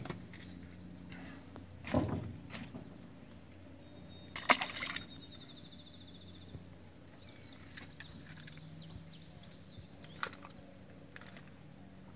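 Dip net working in a fish holding tank: water sloshing and a few sharp knocks from the net frame and flopping fish, the loudest about four and a half seconds in, over a faint steady low hum.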